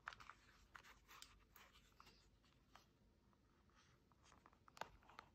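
Faint handling noise from snow goggles turned over in the hands: fingers rubbing on the plastic frame, foam and strap, with scattered light clicks and a sharper tap or two near the end.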